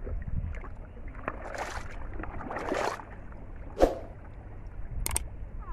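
Water splashing and pouring as plastic fishing bottles are lifted out of shallow water, twice, then a sharp knock of a plastic bottle dropped into a plastic basin, with a few lighter clicks near the end.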